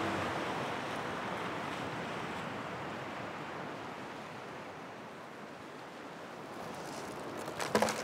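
Sea waves washing over a rocky shore, a steady hiss of surf that eases slightly mid-way and swells again. Near the end, a short cluster of sharp clicks and crackles.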